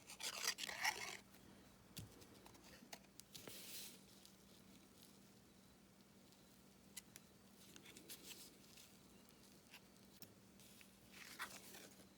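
Quiet handling of cardstock during gluing: a few brief paper rustles and small sharp ticks, with a faint low steady hum underneath.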